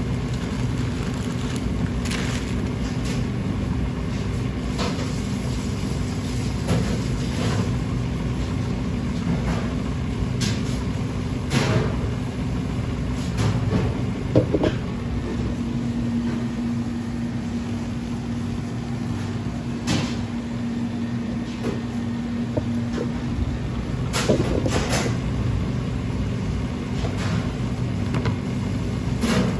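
Steady low hum of kitchen equipment, with scattered light knocks and rustles of plastic wrap and plastic tubs being handled on a plastic cutting board. A faint steady tone joins the hum for several seconds midway.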